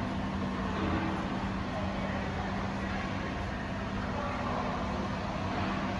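Steady machinery hum with a constant low tone, as of pumps or motors running in a factory hall.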